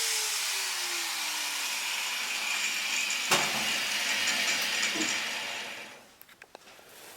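A power tool working sheet steel: a steady abrasive hiss with a faint pitch sinking slowly at first, one sharp knock about three seconds in, then the noise dies away about six seconds in.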